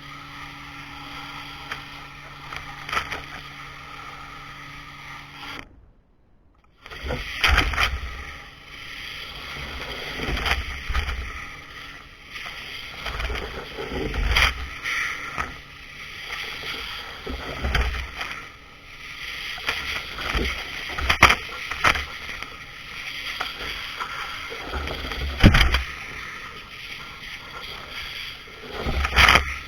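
Pressure washer spraying water. For the first few seconds it is a steady hum with a hiss; after a brief break there is a hissing spray broken by a loud burst or splash every three to four seconds as the jet hits its targets.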